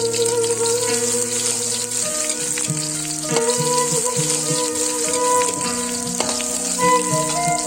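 Food sizzling as it fries in a pan, a steady hiss, under background instrumental music.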